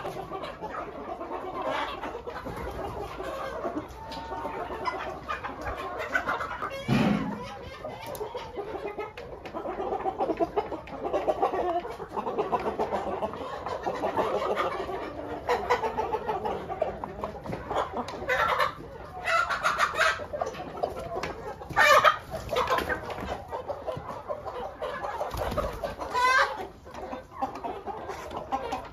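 A flock of hens and roosters clucking without pause, with several louder calls standing out in the second half.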